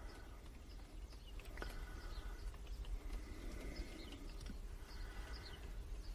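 Faint, scattered bird chirps, short and falling in pitch, over a low steady hum, with a single click about a second and a half in.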